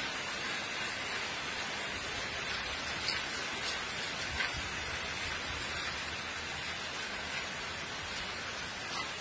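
Steady rain falling on wet pavement and puddles: an even, unbroken hiss with a few faint drip ticks.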